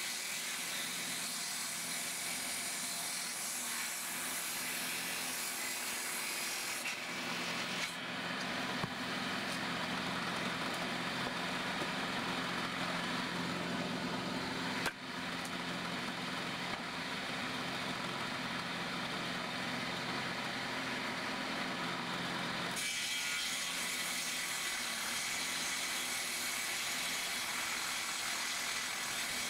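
Old Soviet-era circular saw with a carbide-tipped blade running and cutting through hardwood firewood logs. The sound shifts about seven seconds in and changes back near twenty-three seconds, with a single sharp click midway.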